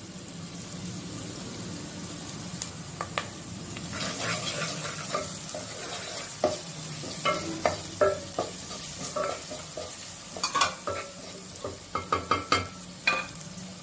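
Chopped onions and green chillies sizzling in hot oil and ghee in a nonstick kadai, frying toward golden, while a wooden spatula stirs them, scraping and knocking against the pan. The stirring knocks come thicker in the second half.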